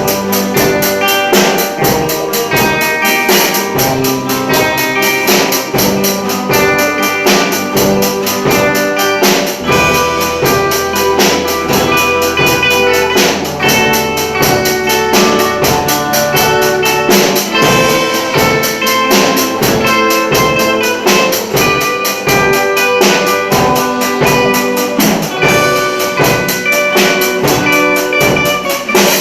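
Music played on pitched instruments over a steady percussion beat; a low bass line comes in about a third of the way through.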